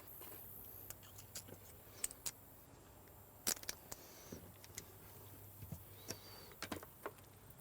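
Faint, scattered clicks and light taps of small parts being handled as an ignition coil, its wire and washer are fitted to an outboard's block.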